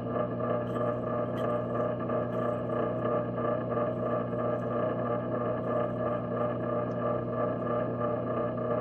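Steady mechanical hum heard underwater in a swimming pool, several fixed tones over a hiss, with a few faint clicks in the first seconds.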